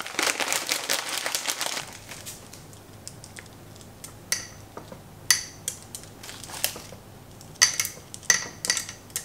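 A bag crinkling for the first couple of seconds, then small pieces of rock sugar dropped one at a time onto a glass jar of lychees, each giving a sharp clink, about eight clinks in all.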